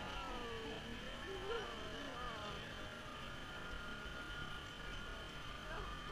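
Faint, indistinct voices of people talking, over a steady high-pitched buzz.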